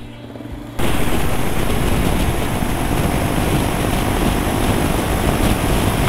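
Wind rushing over the microphone of a motorcycle ridden at highway speed, about 86 km/h, with the engine running under it; it cuts in abruptly about a second in.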